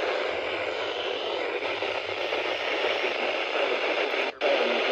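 Radio receiver hiss: steady static between spoken alert messages, with a faint low hum underneath. It cuts out for a moment about four seconds in.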